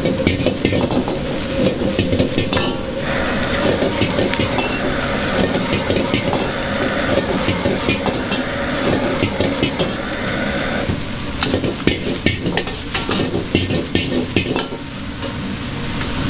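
Egg fried rice sizzling in a hot wok while a metal ladle stirs it, scraping and clacking against the pan many times. A steady hum runs underneath and fades out about two-thirds of the way through.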